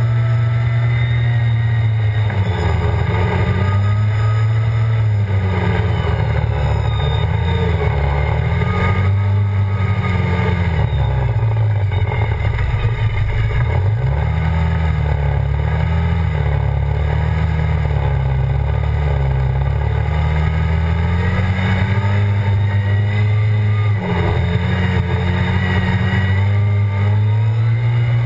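ATV engine running hard at speed, its pitch rising and falling as the throttle opens and closes, with a deep dip about halfway through before it climbs again, over constant wind and tyre noise.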